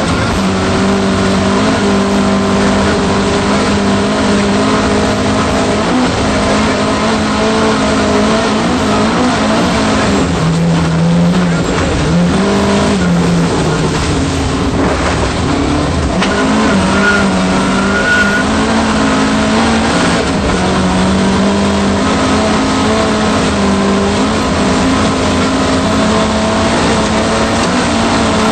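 Volvo 240 rally car's engine heard from inside the cabin, driven hard, its pitch stepping up and down with throttle and gear changes, over loud tyre and road noise. The engine note drops about ten seconds in and climbs again a few seconds later.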